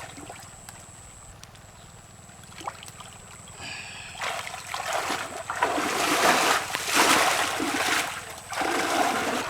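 Shallow muddy water splashing as hands rummage through a nearly drained pond for fish; quiet at first, the splashing grows loud from about four seconds in.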